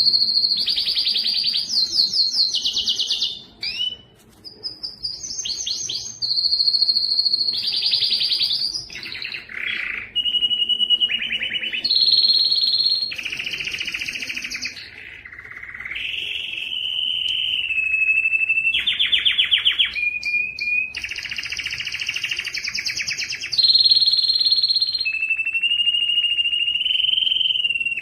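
Male domestic canary singing a long unbroken song: a chain of rolls and trills, each held for a second or two at a new pitch. Some are fast, chattering trills and others smooth, steady whistled rolls.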